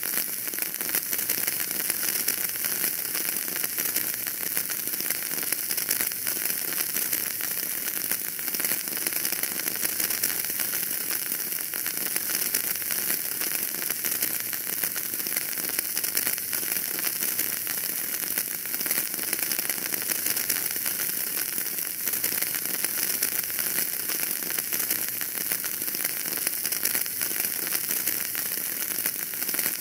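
Wood fire burning in a fireplace: a steady dense crackle with constant fine snaps and hiss.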